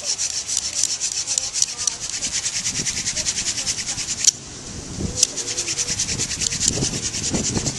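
Hand drill for friction fire: a box elder spindle spun back and forth between the palms on a trumpet vine hearth board, making a fast, even rubbing of hands on the spindle and wood grinding on wood. There is a short break about four seconds in, then the rubbing starts again.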